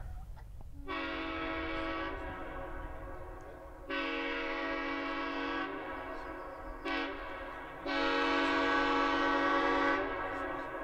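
A pneumatic air horn, of the kind used on locomotives, blows four blasts: long, long, short, long, the railway grade-crossing signal. The tone is full and layered, and each blast leaves a ringing echo as it stops.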